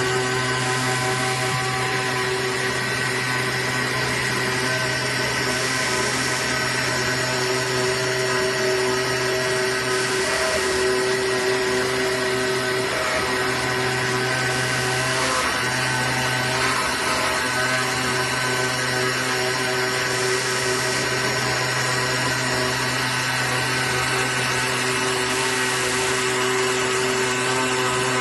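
AOKE DCZ70 CNC flatbed cutting machine running as its cutting head travels over the board: a steady mechanical whir and hum with several constant tones over a hiss. The low hum briefly drops out twice around the middle.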